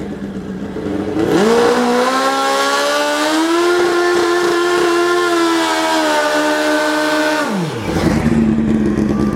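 A vehicle's motor revs up, holds a high steady pitch for several seconds, then drops back sharply near the end to a lower steady hum.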